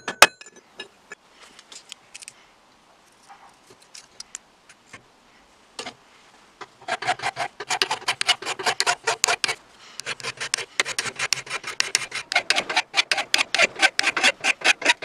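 A sharp hammer blow on steel at the very start, then faint handling clicks. From about seven seconds in, a hand file works a bent steel strap from an old breast drill clamped in a vise, in quick back-and-forth strokes, with a short pause around ten seconds.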